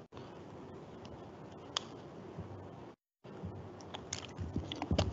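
Faint steady hiss of room tone through a handheld microphone, with a sharp click about two seconds in. The signal cuts out completely for a moment about three seconds in, and near the end there is a string of clicks and low knocks as the microphone is handled and carried.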